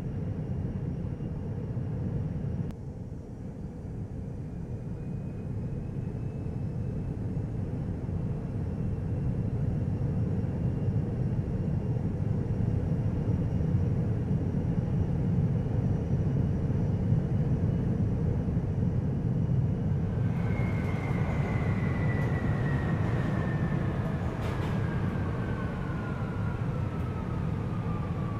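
Tama Monorail train riding along its concrete guideway on rubber tyres, with a steady low rumble and a faint motor whine. About two-thirds of the way in, a louder motor whine sets in and falls steadily in pitch as the train brakes into a station, with a few knocks along the way.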